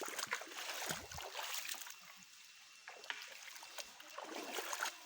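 Shallow stream water trickling, with scattered small splashes and clicks, busier in the first two seconds.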